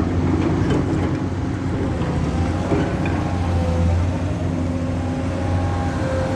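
Heavy diesel engine running steadily with a deep, continuous hum, and faint higher steady tones over it from about halfway in.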